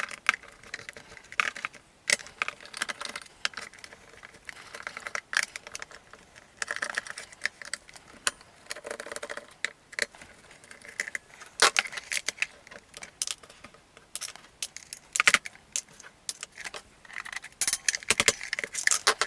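Small hand screwdriver undoing screws from the hard plastic casing of a vintage electronic toy sword: irregular small clicks, ticks and scrapes of metal on plastic, with occasional handling knocks.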